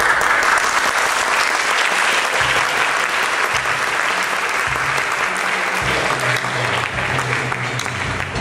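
Theatre audience applauding, breaking out suddenly and holding steady. About two seconds in, music with a low, stepping bass line starts under the clapping.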